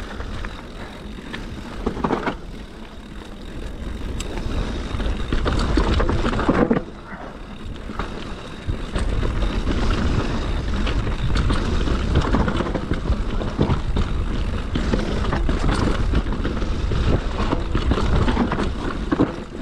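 Canyon Sender downhill mountain bike rolling fast down a dirt singletrail, its tyres scrabbling over dirt and loose stones, with wind rumbling on the GoPro microphone. The rear tyre slides and skids each time the rear brake is hit hard. The noise eases briefly about seven seconds in.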